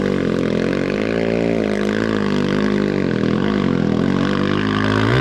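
Rally motorcycle engine revving up and down again and again, its pitch rising and falling, as the rear wheel spins in deep mud: the bike is bogged down and the rider is trying to power it free.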